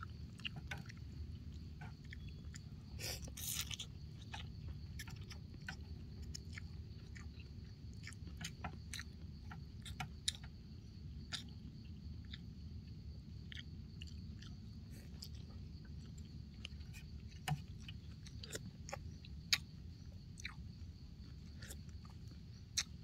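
A person eating noodle soup with chopsticks, close to the microphone: chewing and many short, scattered mouth and utensil clicks over a steady low background hum.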